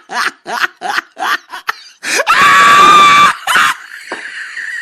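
Laughter in quick bursts, then a loud, shrill, held blast about a second long, with a fainter steady tone near the end.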